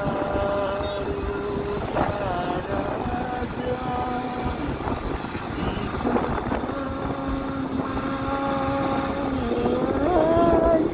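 Motor scooter engine running steadily while riding, over the rush of wind on the microphone. The engine note holds level for stretches, shifts in pitch a couple of times and rises near the end.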